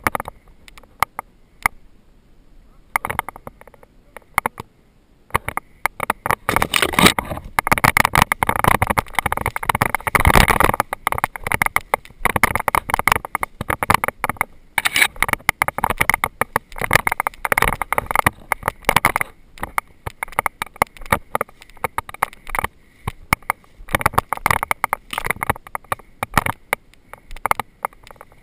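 Footsteps crunching through dry leaves and undergrowth, with brush and branches rustling and scraping close by: a dense, continuous crackling that is heaviest through the middle stretch.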